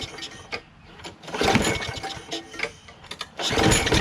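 Recoil starter pulls cranking a Briggs & Stratton Quantum single-cylinder lawn mower engine, twice, with no gas in the tank; on the second pull near the end the engine catches and starts to run.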